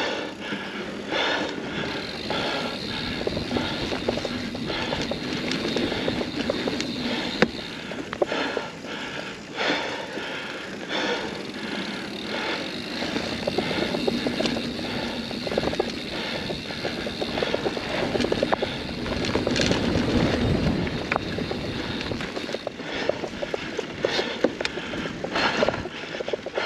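Mountain bike rolling fast over a rough dirt trail: steady tyre noise with the chain and frame rattling and clicking over bumps, and a deeper rumble about twenty seconds in.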